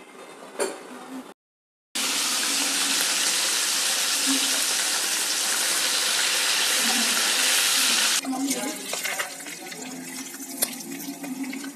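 Masala-coated sardines deep-frying in hot oil in a kadai: a loud, even sizzle starting abruptly about two seconds in. About eight seconds in it drops to a softer crackle and bubbling with scattered sharp pops.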